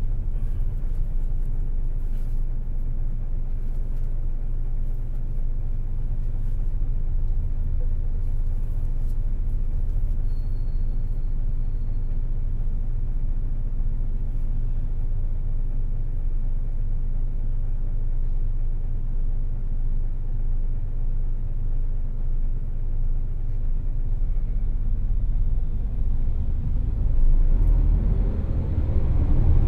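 Hino Selega LKG-RU1ESBA coach's inline-six diesel heard from inside the cabin, a steady low running rumble while under way. Near the end the engine note rises and gets louder as the coach accelerates.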